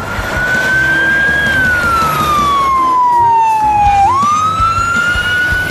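Fire engine siren wailing: the pitch falls slowly for about two and a half seconds, then sweeps quickly back up about four seconds in. Engine and traffic rumble run underneath.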